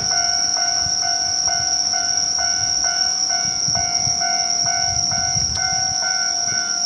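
Japanese level-crossing warning bell ringing at a steady rate of about two dings a second while the crossing is closed for an approaching train.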